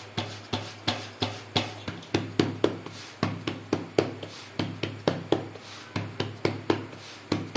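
Palms patting a disc of jowar (sorghum) dough into a thin bhakri, a regular run of soft slaps about three a second as the dough is turned and patted flat.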